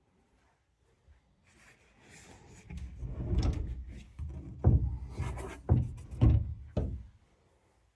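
A rumbling, scraping noise builds up about two seconds in. Four sharp knocks follow before it stops near the end.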